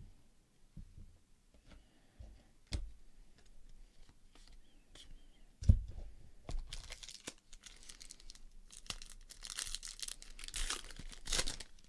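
Foil wrapper of a Panini Totally Certified basketball card pack being torn open and crinkled in the hands, a dense crackling from about halfway through. Before it come light clicks of cards being handled and one sharp thump.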